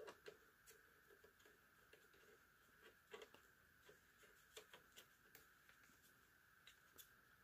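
Faint, irregular light clicks and scrapes as a detachable router antenna is twisted by hand onto its threaded connector on an ASUS GT-AX11000 router.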